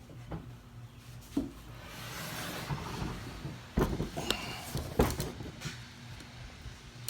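Handling noise from boxes being moved and unpacked: rustling and rubbing, with three sharp knocks, the loudest near the middle, and a brief squeak.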